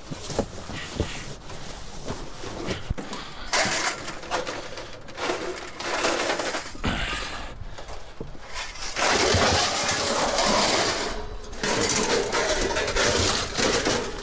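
Scrap being handled and pulled apart: irregular rustling, scraping and clattering of metal and plastic, with scattered sharp knocks and a louder stretch of dense rustling a little past the middle.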